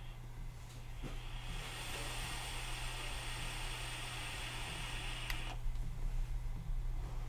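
A long draw on a Digiflavor Drop RDA: the freshly re-wicked coils fire with a steady hiss and sizzle as air is pulled through the atomiser for about four seconds. The hiss stops abruptly just after a click.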